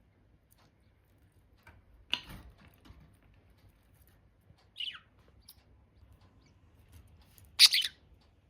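Pet budgerigars giving a few short, scattered calls: a sharp chirp about two seconds in, a downward-sliding chirp about halfway, and the loudest call near the end.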